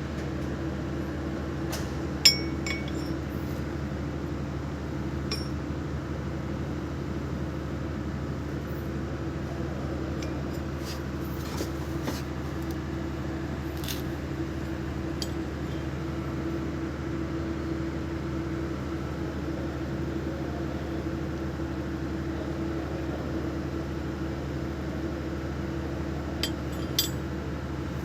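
Used excavator hydraulic pump parts, metal on metal, clinking now and then as they are handled; the loudest is a single ringing clink about two seconds in, with a few lighter clicks later and a pair near the end. A steady low machine hum runs underneath.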